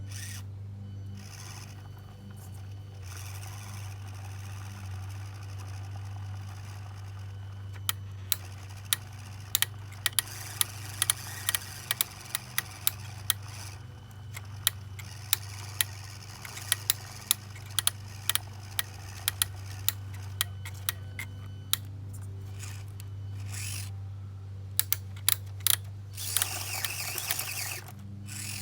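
Small electric motor and gear train of a radio-controlled tow truck running with a steady low hum, with many sharp, irregular clicks from about a third of the way in.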